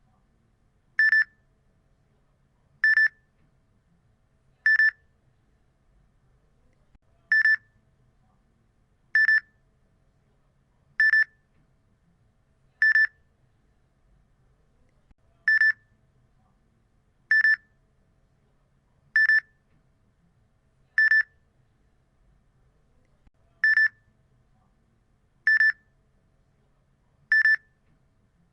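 Electronic beep ringtone: short, identical high-pitched beeps, about one every two seconds, coming in groups of four with a slightly longer pause between groups.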